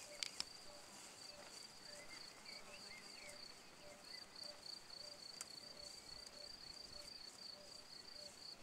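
Faint meadow ambience carried by a cricket chirping steadily: an even run of short high chirps, about four or five a second.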